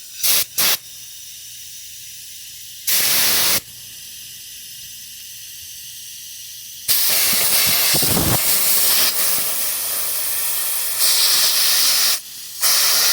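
Compressed-air blowgun blasting through a Briggs & Stratton carburetor jet to clear it. There are two quick blasts at the start, a short one about three seconds in, a long blast of about five seconds from about seven seconds in, and another near the end.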